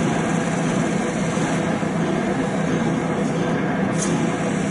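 A large diesel engine running steadily with an even, low drone.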